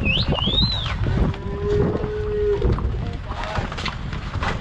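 A cow mooing: one long, level moo about a second in, lasting over a second. At the start there are a few high sliding whistled notes, over a steady low rumble.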